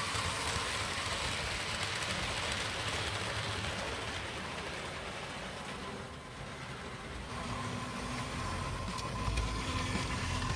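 Märklin H0 model train with tinplate coaches running on metal track: a steady rattling rumble of wheels and motor, a little quieter around the middle and louder again near the end as the train comes closer.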